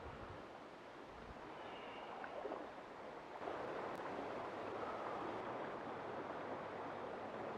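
River water running past a grassy bank, a steady rushing that gets louder about three and a half seconds in.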